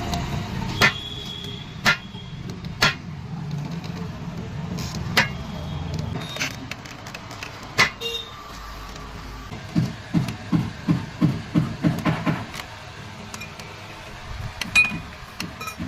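Sharp metal clicks and knocks from work on a motorcycle's double (centre) stand. About ten seconds in, a run of about eight quick low thumps follows, roughly three a second.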